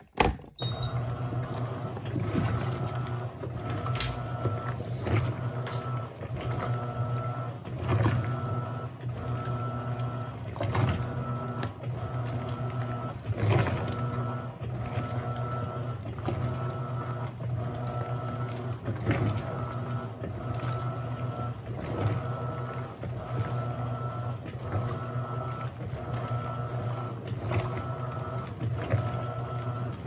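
Electrolux LAC17 top-loading washing machine agitating a heavy load of jeans with its impeller: a steady motor hum with water and clothes churning, rising and falling in a regular pattern as the impeller switches direction.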